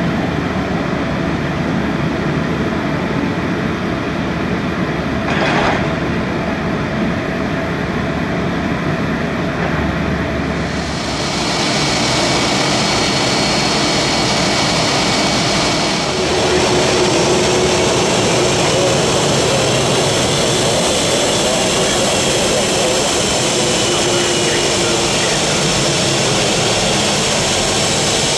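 A steady rumble of airport ground equipment, then, about ten seconds in, the steady whine of a Boeing 757 freighter's jet engines running at idle as the aircraft is pushed back and taxis.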